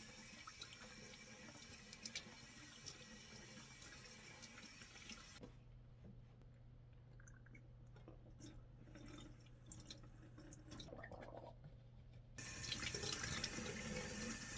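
Kitchen tap running into a sink. It stops about five seconds in, leaving a low hum and a few light knocks, then runs again, louder, about two seconds before the end.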